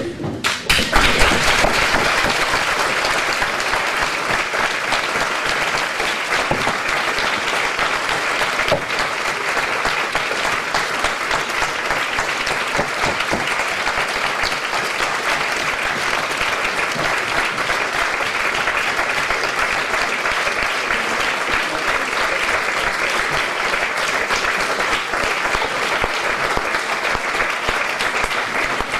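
Audience applauding: a long, steady round of clapping that swells loudest in the first couple of seconds and then carries on evenly.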